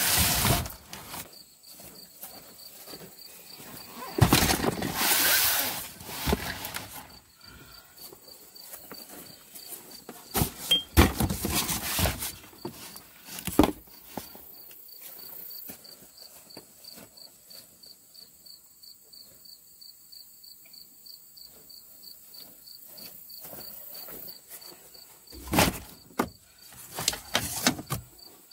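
An insect trills steadily in a fast, even, high-pitched pulse. Several loud bursts of noise, each a second or two long, break in near the start, around four to six seconds, around ten to thirteen seconds, and near the end.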